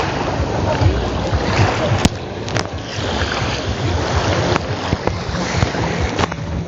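Sea waves washing onto a sand-and-pebble beach, with wind on the microphone and a few short knocks.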